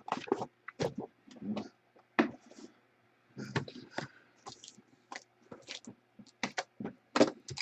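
Scattered light clicks and soft rustling at irregular intervals from objects being handled on a desk.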